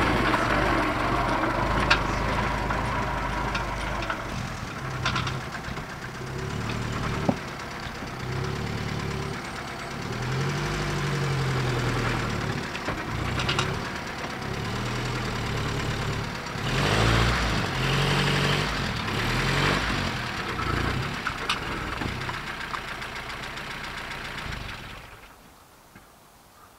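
FSC Żuk A11 van's engine running as the van drives and manoeuvres, its pitch rising and falling with the throttle. Near the end the engine cuts off.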